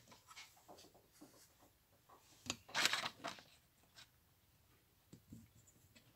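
Handling noise from a camera being lowered and set in place: scattered light knocks and rubbing, with a louder rustle about three seconds in.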